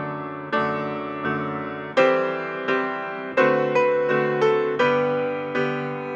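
Solo piano music: single notes and chords struck one after another, each left to ring out and fade before the next.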